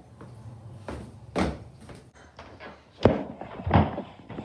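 A few thuds and knocks of a door, the loudest a sharp knock about three seconds in and another just after.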